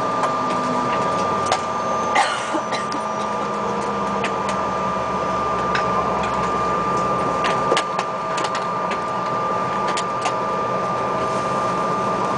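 Inside the cabin of a Bombardier CRJ regional jet taxiing slowly on its rear-mounted turbofans at idle: a steady engine hum and whine with a constant mid-pitched tone. Scattered light clicks and rattles sound on top, with a brief rustle about two seconds in.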